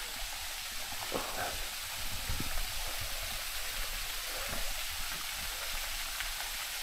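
Steady outdoor ambience: an even high hiss with a low rumble underneath and a few faint knocks.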